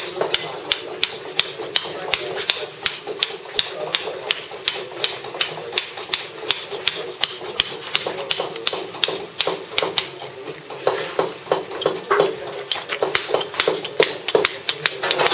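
Mallet tapping a wooden-handled mason's chisel along a block of Bath stone, a steady run of light taps about three or four a second. Each tap takes a little waste off as the surface is tooled down toward a marked line.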